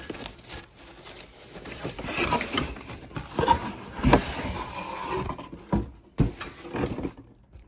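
Plastic bag rustling and crinkling as a new kitchen faucet is taken out of it, with sharp knocks and clicks of the faucet being handled, the loudest about four seconds in.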